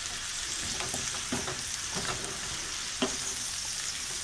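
Cabbage, sausage and bacon sizzling in a stainless steel skillet while a wooden spoon stirs and turns them, with a few knocks and scrapes of the spoon against the pan, the sharpest about three seconds in.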